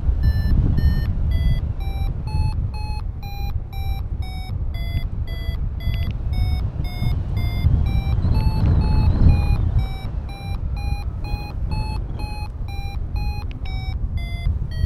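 XCtracer Mini IV paragliding variometer beeping steadily, about three short beeps a second with the pitch drifting up and down a little: its climb tone, signalling that the glider is rising in lift. Wind rumbles on the microphone underneath.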